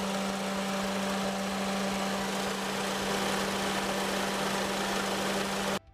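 Perodua Viva engine idling with the aircon on and the compressor's magnetic clutch engaged, giving a steady vibrating drone from the slack compressor belt, a noise that mimics a worn engine mounting. It cuts off abruptly just before the end.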